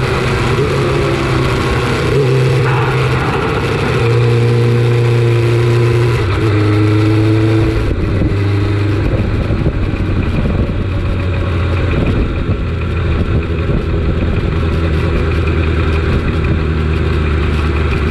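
Suzuki GSX-R750 SRAD's inline-four engine running on the move, its note stepping up and down in pitch over the first half, then settling to a lower, steady note about eight seconds in as the wind rush eases off.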